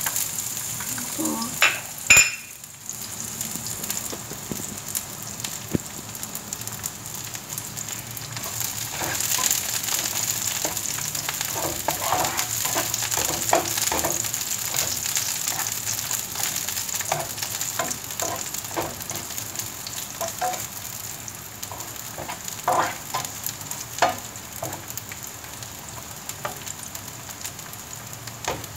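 Sliced garlic sizzling steadily in hot olive oil in a frying pan, with the spatula clicking and scraping against the pan as it is stirred. A sharp clatter about two seconds in.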